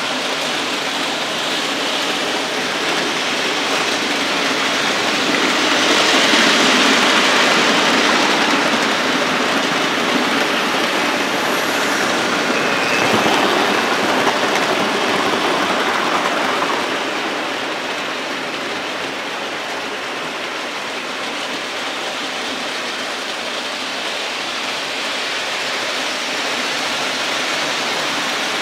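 OO-gauge model trains running on the layout's track, a steady rushing rattle of wheels on rail that swells twice as trains pass close by, the second time as the blue A4 locomotive with its coaches goes past.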